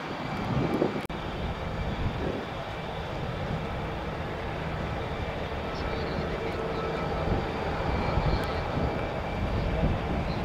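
Jet aircraft engines running, a steady rumble with a faint high whine.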